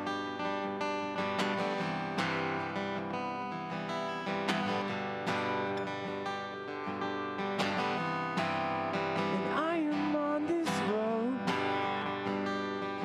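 Acoustic guitar strummed in a steady rhythm, live, with a short sung phrase about ten seconds in.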